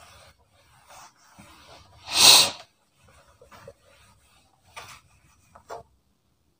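A single short, loud burst of breath, like a snort or stifled sneeze, about two seconds in. Around it are faint rubbing sounds of a hand wiping a whiteboard and a couple of light knocks near the end.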